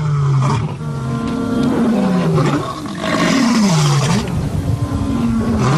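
A lioness and a male lion roaring: a series of overlapping roars, each sliding down in pitch. This is territorial roaring that announces the pair's presence.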